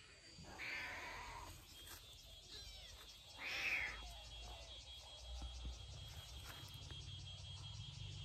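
A tabby kitten meowing twice, the second meow about three seconds after the first and louder.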